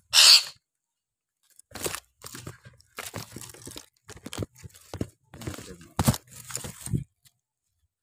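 Plastic food tub with a snap-on lid being handled inside a wooden-slatted bird cage: irregular crackling, rustling and knocking. It opens with a loud, short hissing burst.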